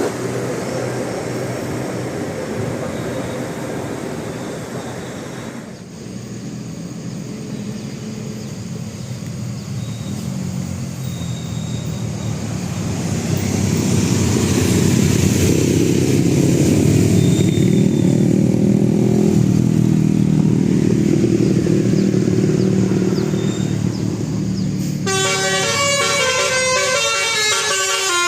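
Vehicle engine noise that swells louder through the middle, then about 25 s in a bus telolet multi-tone air horn starts playing a rapid tune of shifting notes.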